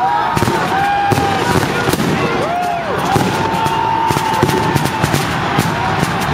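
A dense, continuous barrage of New Year's Eve fireworks and firecrackers, many sharp bangs and cracks close together, with drawn-out voices calling out over them.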